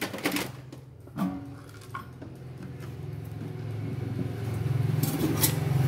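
A few sharp clinks and taps of small metal parts and tools being handled, then the low hum of a motor vehicle engine growing steadily louder.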